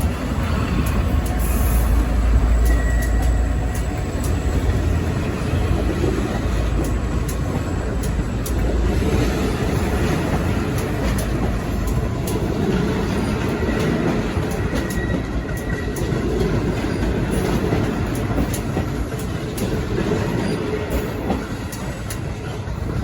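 V/Line N class diesel-electric locomotive running as it pulls away, a low engine rumble that is heaviest for the first few seconds, with wheels on the rails giving scattered clicks and a couple of faint brief squeals.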